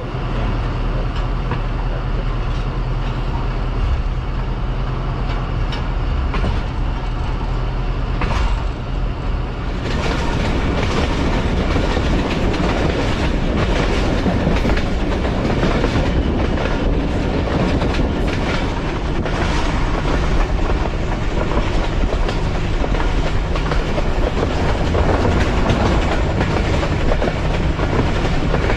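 Passenger train running on the line: a steady rumble with wheels clicking over the rail joints. About ten seconds in, the clatter grows louder and sharper.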